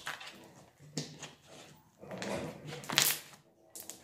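Slime with jelly cubes mixed in being kneaded and squeezed by hand: irregular wet squelching and crackling, loudest about three seconds in.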